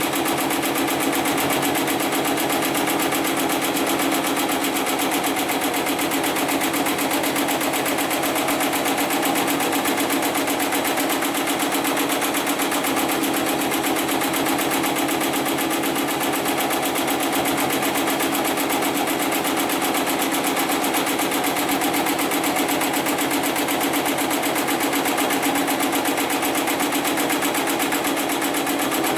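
Automatic programmable heavy-duty pattern sewing machine running without a break, the needle stitching at a steady, rapid rate.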